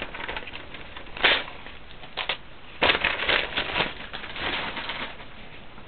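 Newspaper pages handled roughly in the hands, crumpling and rustling in a series of sharp bursts, the loudest about a second in and a busy stretch around three seconds in.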